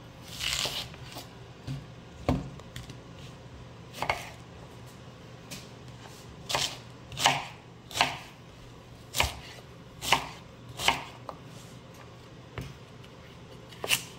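Kitchen knife cutting a fennel bulb on a cutting board: about ten separate sharp knocks, spaced unevenly about a second apart, with a longer pause near the end.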